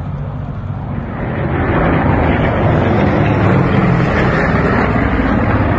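Piston engines of low-flying WWII warbirds, a four-engined B-17 bomber and a fighter, droning overhead. The drone grows louder about a second and a half in, then holds steady.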